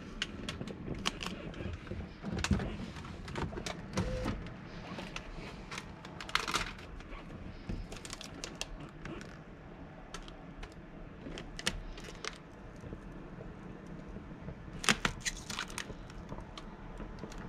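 Hand scrubbing and scraping of old window-tint adhesive off car window glass: irregular light clicks and ticks with a few short scraping strokes.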